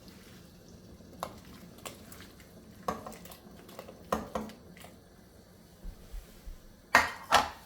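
Kitchen utensils and dishes clattering: scattered clinks and knocks, with the two loudest close together near the end.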